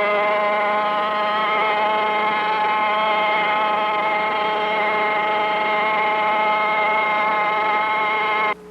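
An engine running at high, steady revs as one sustained note, rising slightly about a second and a half in; it cuts off abruptly near the end.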